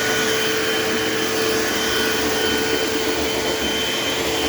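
Eureka AirSpeed AS1101 upright vacuum cleaner running steadily: a constant rush of air with a steady whine from the motor.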